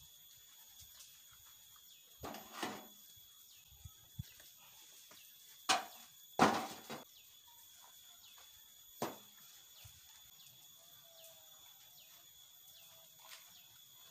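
Heavy stones clunking as they are dropped into a wheelbarrow and onto the stones already in it: a quick pair just after two seconds in, two more near six seconds, the second of these the loudest, and one near nine seconds. A steady faint high hum runs underneath.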